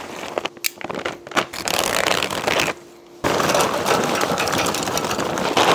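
Hardwood lump charcoal poured from its bag into a steel chimney starter, a rattling clatter of many small pieces. It breaks off briefly about three seconds in, then runs on as a steadier, fuller pour.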